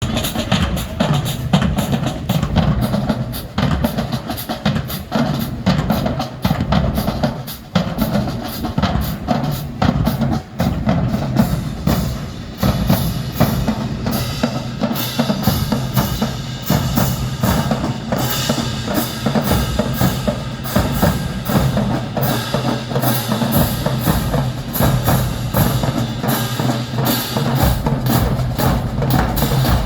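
High school marching band playing, with its drums carrying a steady, dense beat throughout.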